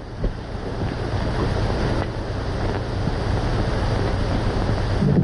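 Steady hiss over a low hum, with no distinct sound event: the background noise of an old optical film soundtrack.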